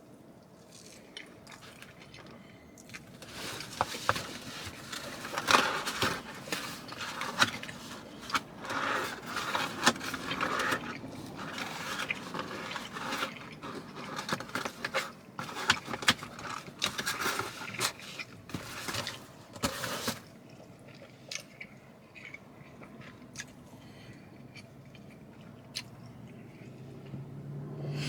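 A person chewing and biting into pizza, with irregular clicks and scraping handling noises. It goes quieter for the last several seconds.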